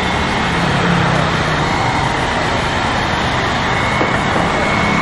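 Handheld electric hair dryer blowing steadily onto the charcoal bed of a barbecue grill to fan the coals hotter: a constant rush of air with a thin, high, steady motor whine.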